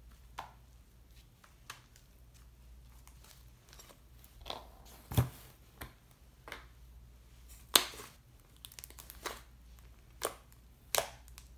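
Hands pressing and squishing a thick yellow clay slime made with Daiso clay, giving scattered sharp pops and crackles a second or so apart, the loudest about five and eight seconds in.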